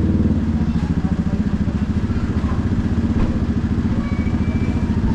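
Yamaha Ténéré 700's parallel-twin engine running steadily with even exhaust pulses, its pitch dipping slightly a moment in.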